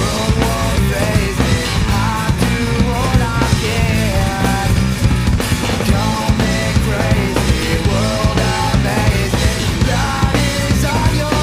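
Studio-recorded rock song played by a band on electric guitar, bass guitar and drum kit, at a steady driving beat.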